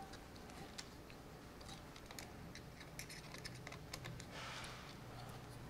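Faint, scattered light clicks and taps of hands handling and fastening the clamps and tubes of a camera-gimbal cage.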